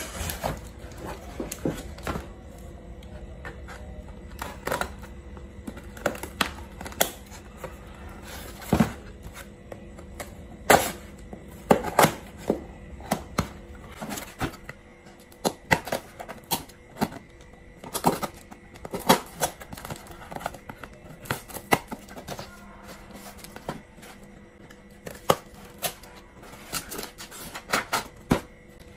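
A cardboard parcel being opened with scissors: irregular snips, clicks and scrapes as the packing tape is cut and pulled and the box is turned over and handled.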